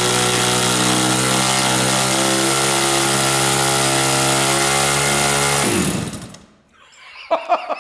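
TBM-RCS SV 100cc opposed-twin gasoline engine turning a propeller at a steady speed on a test stand, then switched off about six seconds in, its speed falling away quickly to a stop. It was cut because it had started sucking air from the half-empty fuel tank. Men's voices start near the end.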